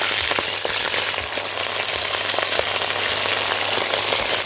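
Red palm oil sizzling and crackling in a metal pot, with cooking plantains being added to the frying smoked fish and aromatics: a steady hiss dotted with many small pops.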